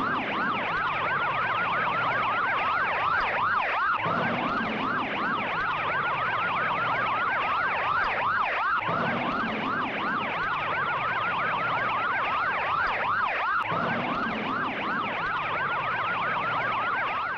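Siren in a fast yelp: the pitch wavers up and down several times a second without a break, as a repeating loop.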